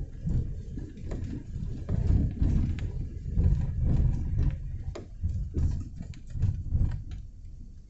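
Light rain falling: irregular drops tapping close by, over a low, uneven rumble that swells and fades.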